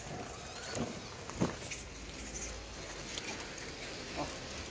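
Monkeys eating bananas and moving about: scattered light clicks, rustles and patter, with a faint brief squeak now and then.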